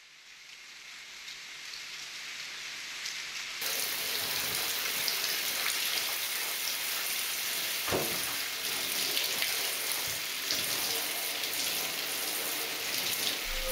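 Handheld shower head spraying water onto a dog in a bathtub, a steady hiss that fades in and grows louder over the first few seconds. A single knock comes about eight seconds in.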